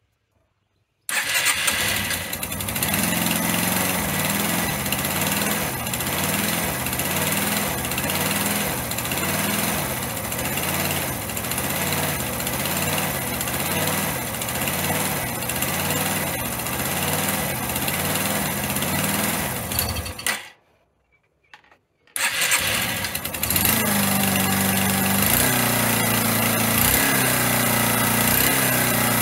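Yamaha SR125 single-cylinder four-stroke engine running after a rebuild. Its revs rise and fall in a steady rhythm as the throttle is deliberately varied to run the new engine in; this is not hunting. About twenty seconds in the engine sound cuts out for about two seconds, then it runs again, revved up and down.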